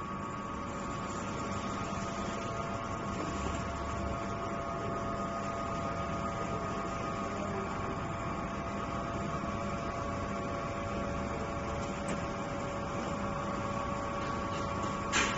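Steady hum of workshop machinery running, with several steady tones over an even mechanical noise and no rhythm of cutting strokes. A short louder noise comes right at the end.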